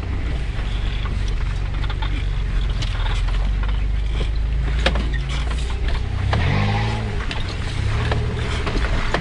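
Off-road 4x4's engine running steadily as it drives a rutted dirt track, heard from inside the cab, with frequent short knocks and rattles from the bumpy ground. The engine note bends briefly about two-thirds of the way through.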